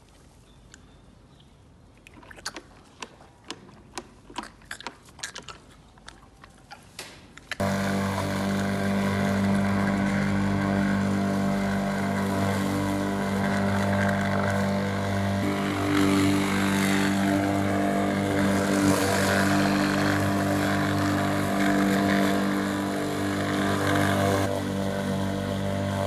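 Electric rotary lawn mower running steadily with a strong, even hum, starting suddenly about a third of the way in. Before it, soft irregular clicks.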